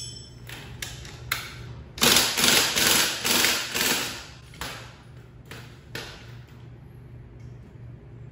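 Cordless impact wrench hammering on the rear axle nut for a couple of seconds, starting about two seconds in, then a few metal knocks and thuds as the rear wheel is worked off the axle.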